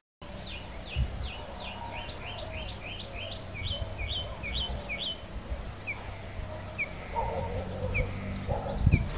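Birds chirping: a quick run of short, falling chirps, then scattered single chirps, over a steady, evenly repeating high ticking and a faint low hum.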